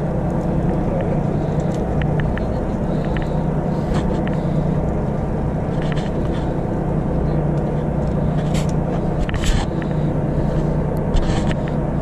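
Steady low drone of the charter boat's engine running, with a few short clicks and rustles of hands handling a hooked fish close to the microphone.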